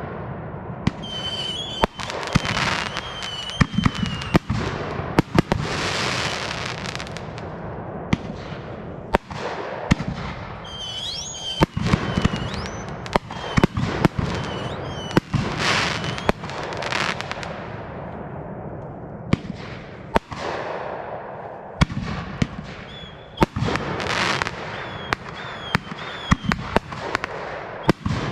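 Aerial fireworks display: a rapid run of shell bursts and bangs over continuous crackling, with wavering high whistles several times.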